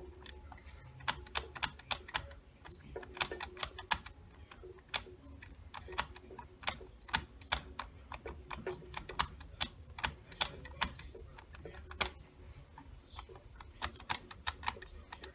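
1965 Fender Mustang's pickup slide switches being flicked back and forth over and over, a quick, irregular run of sharp clicks. The switches are being worked to spread freshly sprayed contact cleaner through them, because they have not been switching properly.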